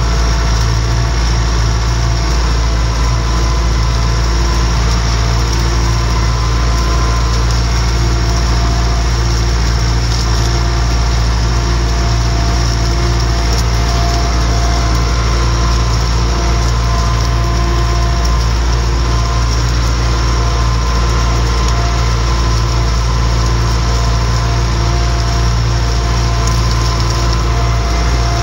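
MTZ-892 tractor's diesel engine running steadily under load while towing a field cultivator through the soil. The engine pulls it with ease at about 1600–1700 rpm.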